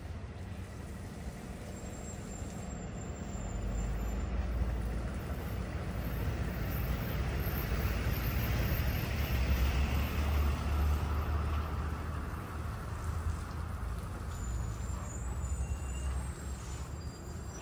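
A road vehicle passing by: a low engine rumble and road noise swell over several seconds, loudest about halfway through, then fade away.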